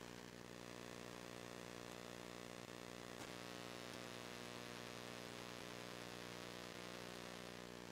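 A faint, steady electrical or machine hum with a hiss over it, unchanging throughout.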